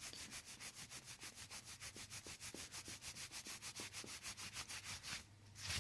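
Faint, fast rubbing strokes, about ten a second and evenly spaced, with a louder brief rustle just before the end.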